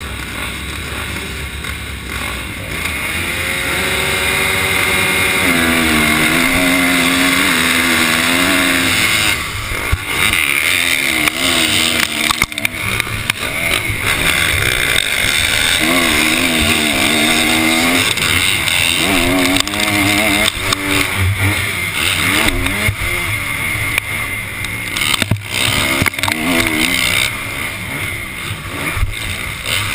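Motocross bike engine pulling away from the starting gate. About four seconds in its pitch climbs, then it runs hard through the gears, rising and falling, among other dirt bikes. Occasional sharp knocks are heard.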